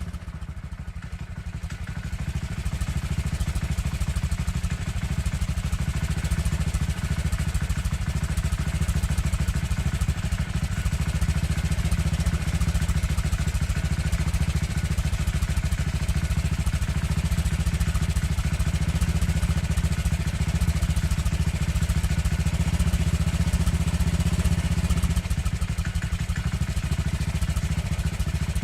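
Motorcycle engine running steadily without revving, a constant low pulsing note with no rises or falls in pitch.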